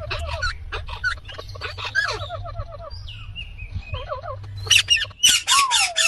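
Indian ringneck parrot calling: rapid chirps, warbling trills and gliding whistles, then a run of loud, harsh squawks, about five a second, near the end.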